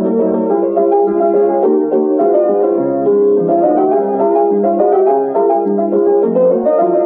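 Background piano music, a busy run of quick notes in a silent-film style.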